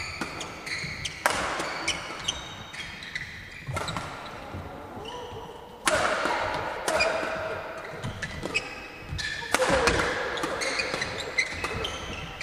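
Badminton rally: rackets striking the shuttlecock in quick exchanges, mixed with the short high squeaks of court shoes on the sports mat. Three harder, louder hits come about a second in, near the middle and near the end, each followed by a wash of crowd noise and voices.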